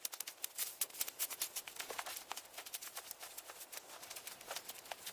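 Fast, irregular crackling: many sharp, thin clicks with almost no low sound beneath them.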